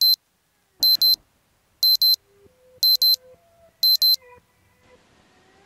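Alarm beeping in quick double beeps, one pair about every second, five pairs in all, then stopping about four seconds in.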